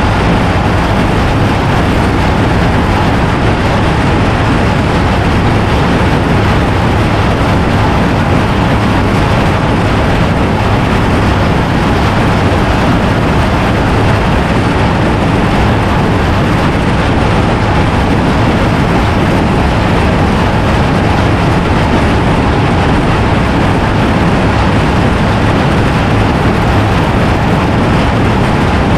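David Brown 1200 tractor engine running steadily at working throttle, pulling a New Holland 310 Hayliner square baler at work, with the baler's machinery running along with it.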